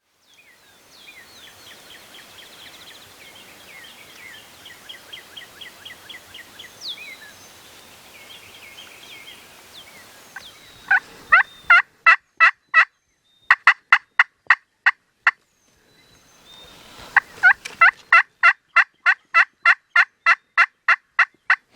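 Turkey yelping: three runs of loud, evenly spaced yelps at about four a second, the longest run near the end. Faint songbird chirps come before the yelps.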